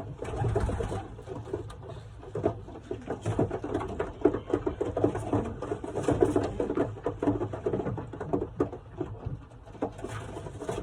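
Young racing pigeons in a small loft: cooing and rustling, with many quick taps and flutters through the middle of the stretch.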